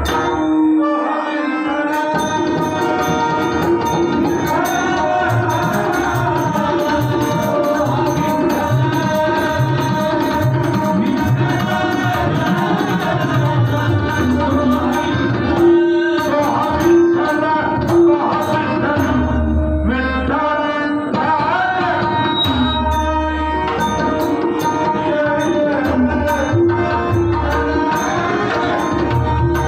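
Devotional bhajan performed live: a male voice sings over a harmonium's held chords, accompanied by pakhavaj and tabla drumming. The drums drop out briefly about a second in, then resume.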